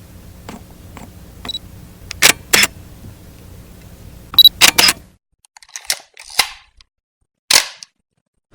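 A series of sharp mechanical clicks at uneven intervals, the loudest a quick cluster of four about four and a half seconds in. A faint low hum sits under the first five seconds and then cuts off, leaving a few more scattered clicks.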